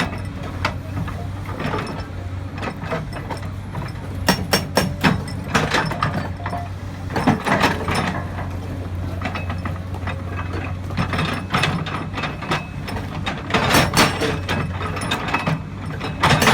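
Komatsu excavator running steadily, with its hydraulic rock breaker hammer giving sharp, irregular metallic knocks and clatter in short clusters throughout.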